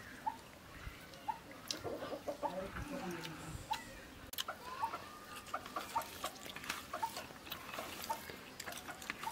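Chickens clucking: a run of low clucks about two to four seconds in, short high peeps about once a second, and scattered light clicks.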